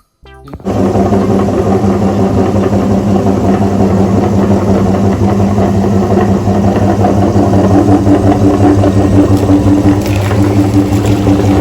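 A motor starts about half a second in and runs steadily with a low hum and a rattling, machine-like noise.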